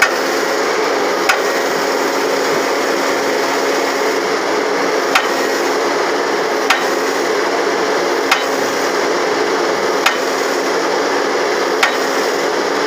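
Backhoe hydraulic breaker hammer striking weakly and slowly: a sharp knock every one to four seconds at an uneven pace, over the steady hum of the running machine. The hammer has lost its force and needs repair.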